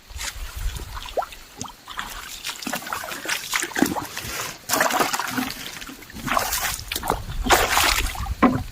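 Shallow water splashing and sloshing in irregular bursts, as someone wades and gropes for fish in a flooded rice paddy. The loudest splashes come about halfway through and again near the end.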